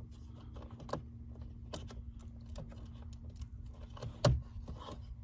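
Scattered light clicks and taps of plastic door trim parts being handled, with one louder knock about four seconds in, over a low steady hum.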